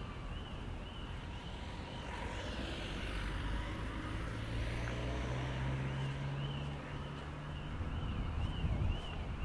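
Street traffic: a car passing by, its engine hum and tyre noise swelling in the middle and then fading. Behind it, a high electronic warbling tone rises and falls steadily, about twice a second, like a distant alarm.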